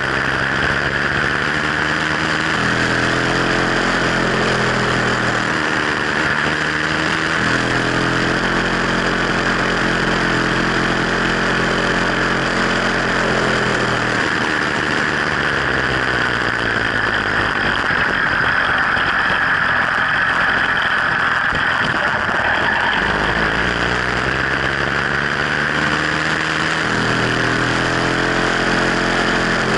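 Sky Hawk 66cc two-stroke bicycle engine running as the bike rides along, its pitch rising and falling with the throttle. About halfway through it eases off, and it climbs again near the end.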